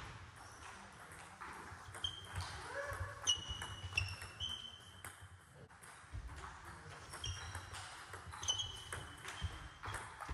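Table tennis balls clicking irregularly off bats and tables, with several short high-pitched squeaks of shoes on the sports-hall floor.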